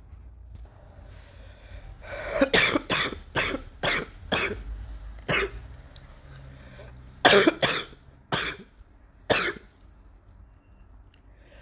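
A coughing fit: a quick run of short, harsh coughs starting about two seconds in, then a close pair and two single coughs spaced over the next few seconds.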